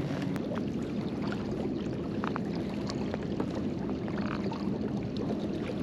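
Water washing and lapping against a kayak's hull in a steady wash, with many small splashes and ticks.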